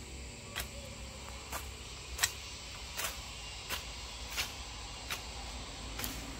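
Regular sharp knocks, about eight of them, one every three quarters of a second, over a low steady rumble.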